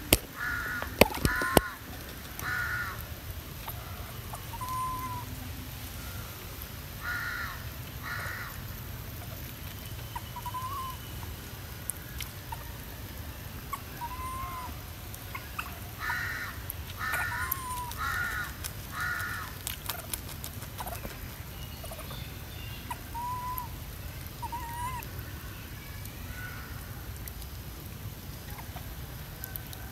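Short animal calls repeated through, often in quick runs of two to four, with brief single whistle-like notes that rise and fall between them. A few sharp clicks about a second in are the loudest sounds.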